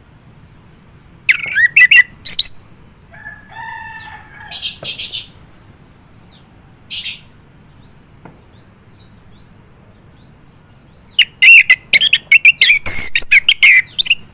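Male orange-headed thrush singing in quick, varied, high warbling phrases, with a lower drawn-out note and a few short hissing bursts between them; a long, dense burst of song comes near the end.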